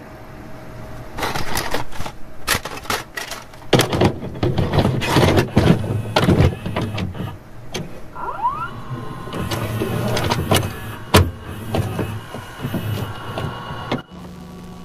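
A VHS cassette being inserted and loaded into a video cassette recorder: clicks, clunks and motor whirring, with a short rising whine about halfway through. About a second before the end it drops to a steady hum and tape hiss as playback starts.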